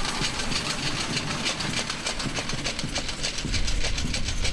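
Pedal rail bike rolling along the track: its wheels on the rails make a steady clatter of many rapid small clicks, and a low rumble joins near the end.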